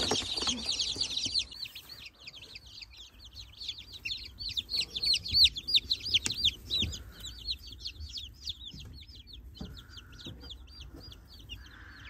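A brood of day-old chicks peeping continuously: many overlapping short, high chirps, loudest in the first second or two, then softer and steady.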